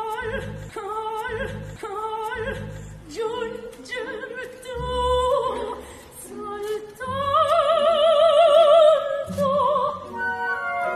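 Operatic soprano singing over orchestral accompaniment. Short rising phrases lead to a long high note, held with wide vibrato, about seven seconds in, and a quick run of notes follows near the end.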